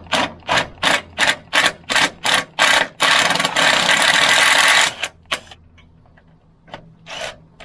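Step drill bit in a hand drill cutting through the aluminium mast wall, run in short bursts about three a second, then held on for a steady two-second cut, with a few more short bursts after it.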